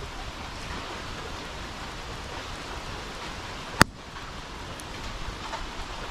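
Bonfire burning with a steady crackling hiss, and one sharp, loud pop a little under four seconds in.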